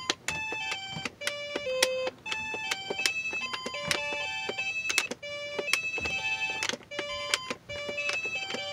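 2006 Fisher-Price toy laptop playing a melody of electronic beeps through its small speaker, the notes changing pitch several times a second with a click at many of the note starts.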